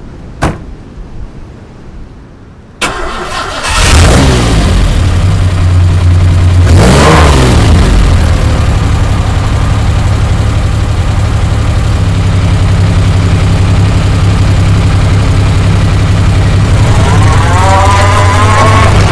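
Citroën SM's Maserati V6 being started: a single click, then the starter cranking, and the engine catching a second later. It is revved twice, settles into a steady idle, and is revved again near the end.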